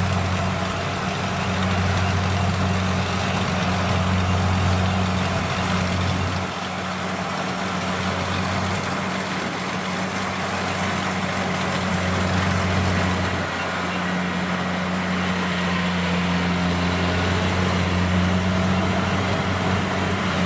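Kubota DC70 rice combine harvester running under load as it cuts and threshes rice: a steady diesel engine hum mixed with the noise of the threshing drum.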